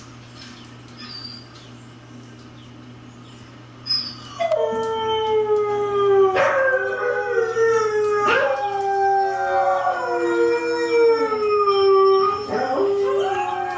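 Husky howling along with other huskies' howls from a video on a TV. Long, drawn-out howls start about four seconds in and sink slowly in pitch, with new howls breaking in a few times.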